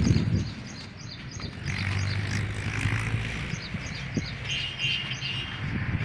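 Small birds chirping over and over in quick short notes, with a low steady engine hum coming in for a couple of seconds from about two seconds in.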